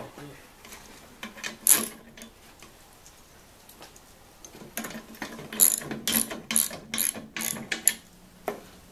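Ratchet wrench tightening a nut on a sawmill track-wheel bracket: one sharp click, a pause, then a run of quick ratcheting clicks about four a second. The bolt is being snugged only moderately, left loose enough for the wheel assembly to wobble.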